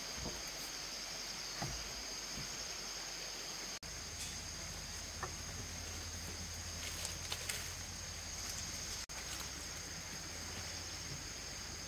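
Steady high-pitched drone of insects in the surrounding forest, broken twice by a very brief dropout, with a few faint rustles and clicks as bundles of thin bamboo strips are handled.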